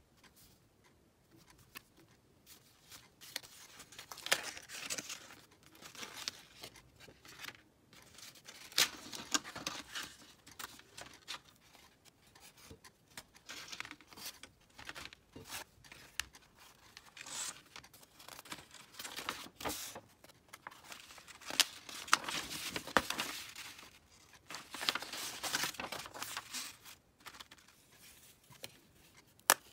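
Thin laser-cut plywood puzzle sheets and their box being handled: irregular rustling and scraping as the sheets slide against each other and the packaging, with scattered light clicks and knocks.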